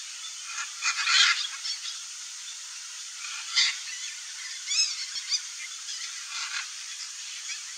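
Blue-and-yellow macaws giving short, harsh squawks over a steady hiss. The loudest squawk comes about a second in, and a few more follow through the middle.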